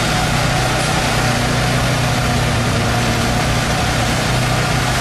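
Construction machinery engines running steadily, chiefly the concrete mixer truck beside the chute, with a constant low hum.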